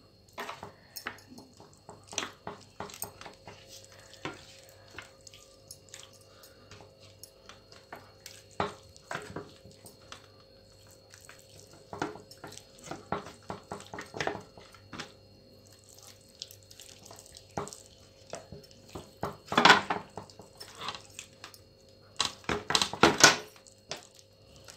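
Wet squelching and smacking of hands rubbing a thick chili-masala tandoori marinade into a whole scored chicken, in short irregular sounds that are loudest about twenty seconds in and again near the end.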